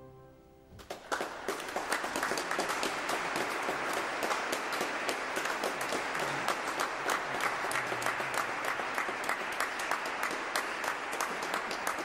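Audience applause, a dense run of many hand claps that breaks out about a second in and goes on steadily.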